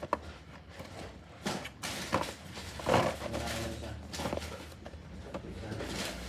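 A toy box being opened by hand: irregular knocks, scrapes and rustles of packaging.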